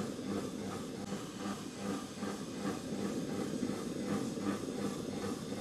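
Silvercrest Monsieur Cuisine (SKMH 1100) kitchen robot running its steam cooking programme: a steady hiss of steam from the boiling water under the steamer basket, with the machine's low running noise beneath.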